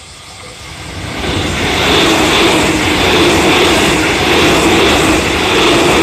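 JR Central 313 series electric train approaching and passing close at speed. Its running noise rises sharply over the first two seconds, then holds loud and steady.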